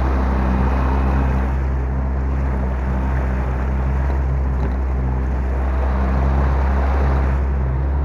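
Small outboard motor pushing an inflatable boat along, running steadily at an even speed with water rushing past the hull.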